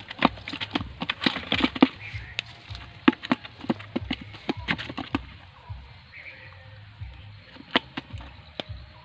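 A run of sharp, irregular clicks and knocks for about five seconds, then two more single clicks near the end.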